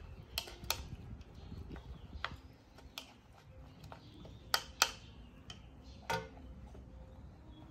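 A metal spoon clinking against a ceramic plate: a handful of sharp, irregular clicks, the loudest pair a little past the middle.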